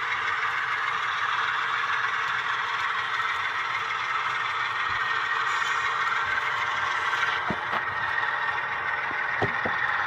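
HO-scale loaded coal hopper cars rolling over model track at slow speed, a steady rattling roll of small metal wheels on rail, with a few sharp clicks near the end.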